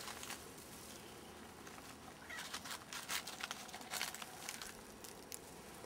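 Faint, scattered rustling and crackling of an eastern hemlock branch being handled, with most of the crackles in the middle.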